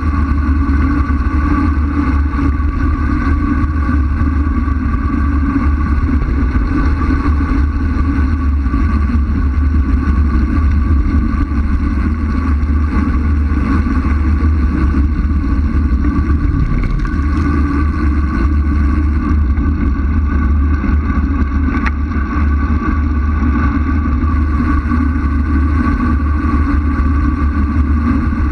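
Wind noise on the microphone of a bicycle-mounted camera during a fast road-bike descent: a steady, loud low rumble with a steady hum over it.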